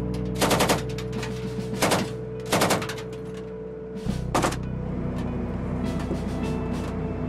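Short bursts of automatic gunfire, four main bursts in the first four and a half seconds, then only scattered shots, over a sustained low music score.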